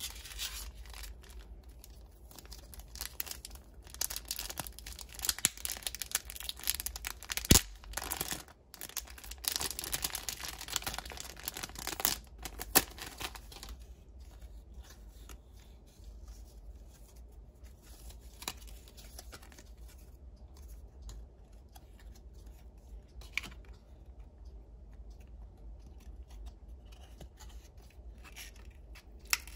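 Packaging being torn and crinkled by hand for about the first fourteen seconds, with one sharp click partway through. After that come a few scattered light clicks and taps.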